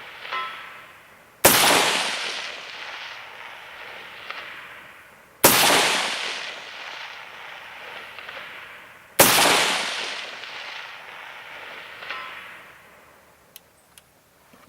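Three rifle shots from an AR-15 firing 69-grain .223 match rounds, about four seconds apart. Each is followed by a long echo that dies away over a couple of seconds.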